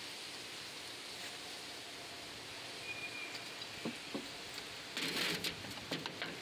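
Faint steady outdoor hiss with a couple of light clicks just before four seconds, then rustling handling noise from about five seconds in as a caulking gun is picked up.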